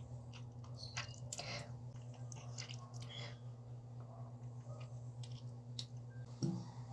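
Faint mouth noises: scattered small clicks and smacks over a steady low hum.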